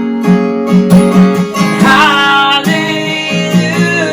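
Worship band music: strummed acoustic guitar with a sung vocal line, one note bending about halfway through.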